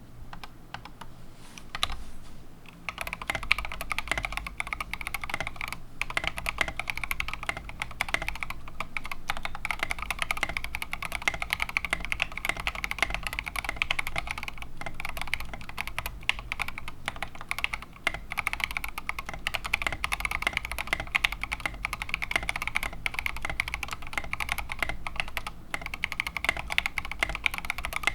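Fast, continuous typing on a TM680 65% mechanical keyboard with stock Gateron Oil King linear switches and Maxkey SA-profile keycaps: a dense run of keystroke clacks, sparser for the first couple of seconds before settling into a steady rapid flow.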